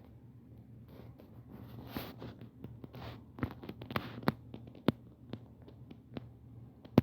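Scattered sharp computer clicks, mouse and keyboard, coming irregularly, with soft rustling noises around them.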